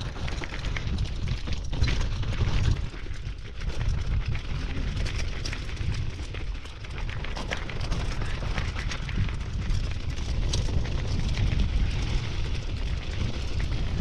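Mountain bike rolling fast down a rocky, stony trail: a steady rumble of wind and tyres on the microphone, with many short clicks and rattles from stones and the bike clattering over rocks.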